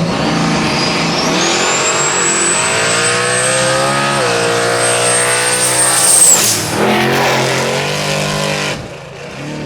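Drag-racing street car at full throttle down the track, its engine pulling hard with a high whine that climbs in pitch and holds. The whine drops off sharply about six seconds in as the throttle is lifted, and the engine sound fades near the end.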